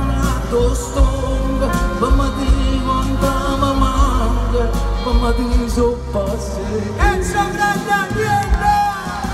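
Live band music played through a concert PA, with heavy bass and a sustained lead melody over the band; about seven seconds in the lead glides sharply up into a held high note.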